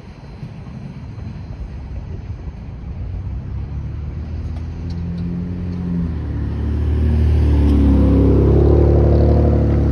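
Cars driving off across a railroad crossing after the gates lift. A low rumble at the start gives way to a car engine that grows steadily louder as the car passes close by, loudest near the end.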